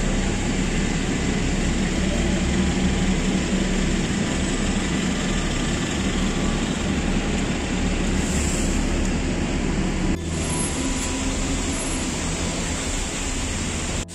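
City street traffic: buses and other vehicles running, with a steady low engine hum. The sound changes abruptly about ten seconds in.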